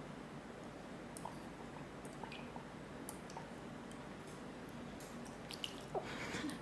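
Faint small clicks and wet sounds of a baby drinking water from a two-handled toddler cup and spilling it onto the table, with a few louder clicks near the end.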